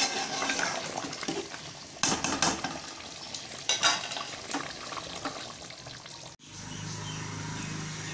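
A steel ladle stirring thick chicken curry gravy in a steel pot, with irregular scrapes and clinks of metal on metal. After a cut about six seconds in, a steady low hum takes over.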